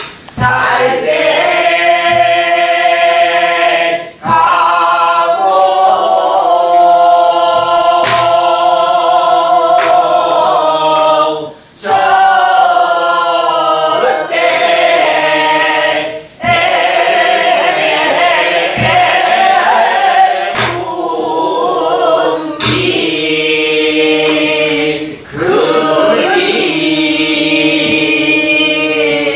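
A group singing a Namdo (southern Korean) folk song in unison, with long held, wavering notes in phrases broken by short breaths. Occasional strokes on buk barrel drums beat the rhythm under the voices.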